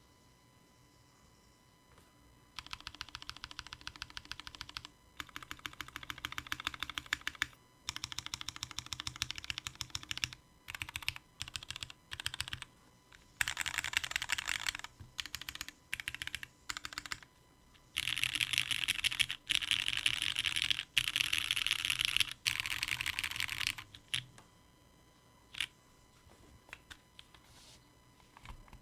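Mechanical keyboard with lubed and filmed Cherry MX Black Hyperglide linear switches, an aluminium plate and doubleshot ABS keycaps, keys pressed in rapid runs of clicks. The runs start about two and a half seconds in, break off in short pauses, and give way to a few scattered single keystrokes near the end.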